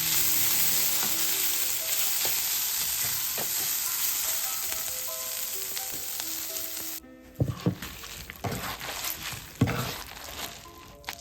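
Vegetables frying in olive oil in a pan, a steady sizzle that cuts off abruptly about seven seconds in. A few sharp knocks follow.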